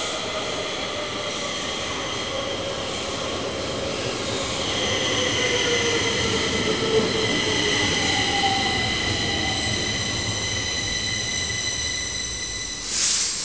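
Stockholm metro train pulling in and braking. Its motor whine falls in pitch as it slows, over a steady high wheel squeal and rumble. A short burst of air hiss comes near the end as it comes to a stop.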